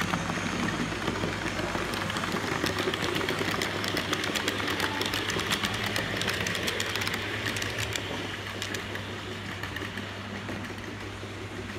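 A model ICE train running past on its track, with the whirr of its small electric motor and a rapid clicking of wheels on the rails. The clicking is densest as the train passes close, then fades near the end.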